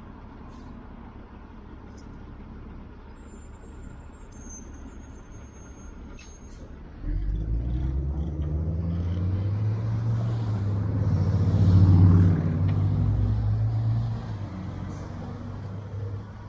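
A heavy motor vehicle's engine drones loudly close by. The low drone cuts in abruptly about seven seconds in, swells to a peak and fades away near the end.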